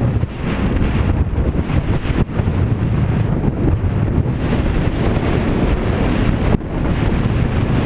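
Loud wind buffeting the microphone of a skier's camera while skiing fast downhill, a low rushing roar, with the hiss of skis sliding on snow swelling and fading through the turns.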